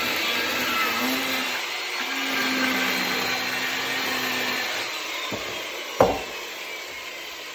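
Electric chainsaw cutting firewood, its motor whine falling in pitch as it winds down over the second half. A single sharp knock about six seconds in.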